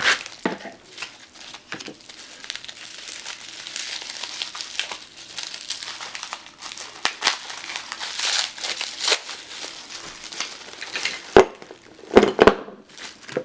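Packaging crinkling and rustling as nail polish bottles are unwrapped by hand, with many small crackles throughout and a few louder sharp knocks near the end.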